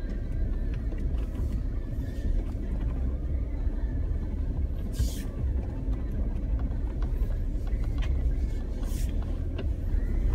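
Jeep's engine and tyres on a dirt road heard from inside the cabin: a steady low rumble as it moves slowly while turning around, with a couple of brief hisses about halfway through and near the end.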